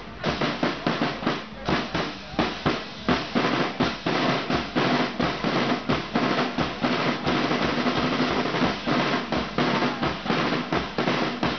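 Marching drum line of snare drums and bass drums playing a steady, fast marching beat.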